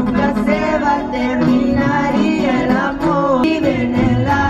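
A song playing: a woman singing a melody over a steady bass line.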